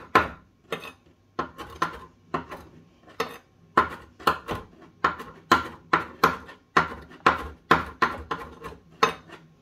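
Chef's knife chopping fresh basil leaves on a hard surface: a steady run of sharp knocks, about two a second.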